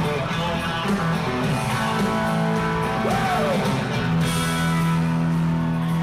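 Live country-rock band playing an instrumental stretch with guitars to the fore over steady chords; one note slides up and back down about three seconds in.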